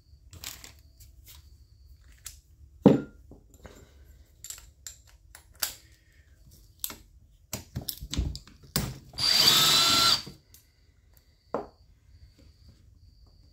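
An electric drill-driver whirs for about a second and a half, backing out a chainsaw intake mounting bolt. Scattered light clicks and knocks of tools and parts being handled come before it and once after.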